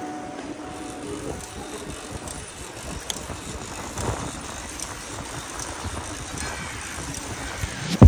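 Steady outdoor noise of a bicycle ride, with wind on the microphone and a couple of faint clicks. The tail of background music fades out in the first second.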